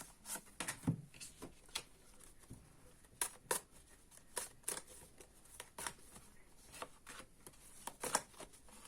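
Tarot cards being handled and laid out on a table: a series of irregular crisp flicks and taps, a few a second.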